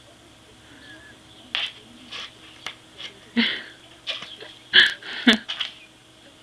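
Kitten rolling and rubbing in catnip on top of a cardboard pizza box, making irregular short scraping and scuffling bursts on the cardboard. The loudest two come about five seconds in.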